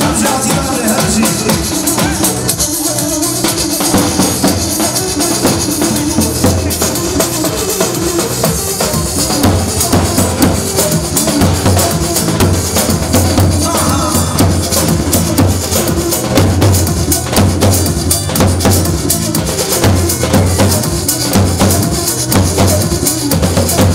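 Kurdish wedding dance music from a band led by electronic keyboard, over a loud, steady drum beat. The bass drum pulse gets heavier about ten seconds in.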